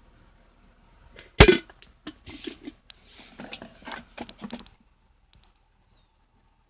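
Hard parts of a Braun drip coffee maker being handled: one sharp knock about a second and a half in, then about three seconds of clinks and clatter that stop suddenly.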